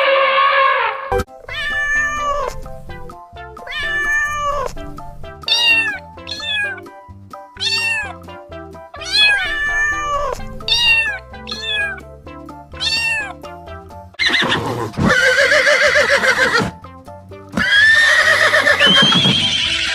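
Animal calls over background music: about nine short calls, each bending up and down in pitch, then two longer, louder, rougher calls near the end.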